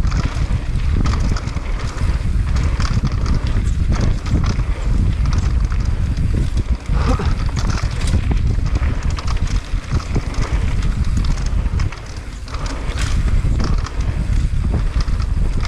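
Mountain bike ridden down a dirt trail, heard close from the bike: a steady low rumble of wind and tyres on dirt, with frequent knocks and rattles of the bike over bumps. It eases briefly about twelve seconds in.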